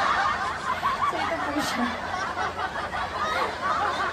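A woman laughing and giggling, with indistinct voices.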